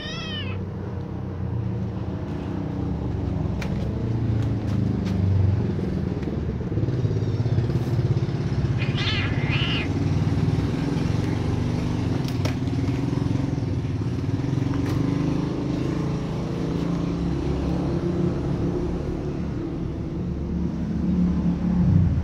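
A low, steady mechanical rumble runs throughout, with a kitten meowing once at the very start. Two short high-pitched calls come about nine seconds in.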